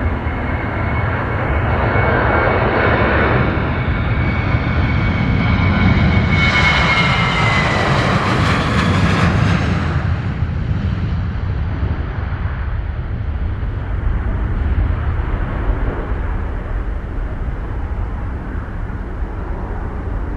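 Boeing 737's twin CFM56 turbofan engines at takeoff power as the jet accelerates down the runway and lifts off. A high fan whine falls in pitch as the aircraft passes about eight seconds in, at the loudest point, then a deep low rumble carries on as it climbs away.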